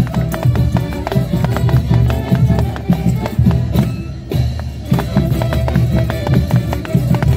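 Band music accompanying a folk dance, with a strong steady beat and many sharp percussive clicks over it.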